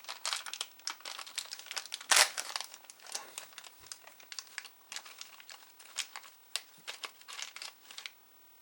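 Packaging crinkling and rustling in irregular handfuls as a packet of assorted replacement drive belts is searched through, with one louder crinkle about two seconds in; it stops shortly before the end.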